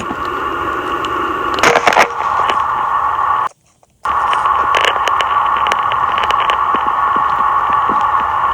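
Leak noise from a water service line under concrete, picked up through a budget wall listening microphone: a steady amplified hiss with a droning tone through it. There is crackling handling noise around two seconds in and a brief dropout about halfway through.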